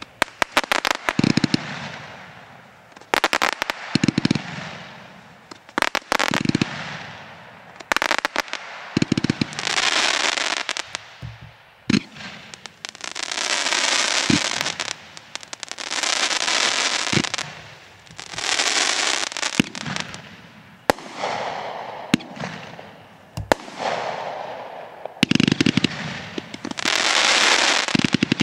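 'Trucking Home' consumer firework cake firing shot after shot: each shot a sharp thump of the launch and burst, followed by a second or two of dense crackling as the stars fall.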